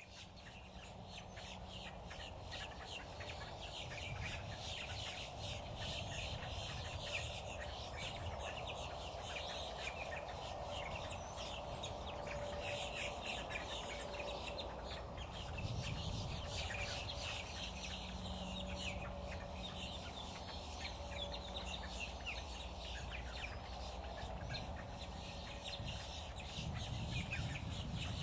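Many birds chirping in rapid, continuous short calls over a low steady rumble.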